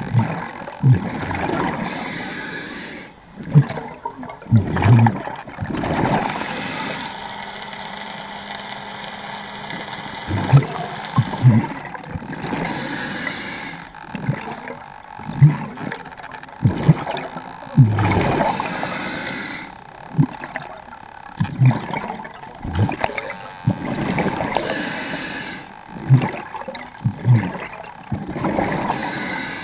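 Underwater breathing through a scuba regulator: a hiss with each inhale every few seconds, and gurgling bubble bursts from the exhales.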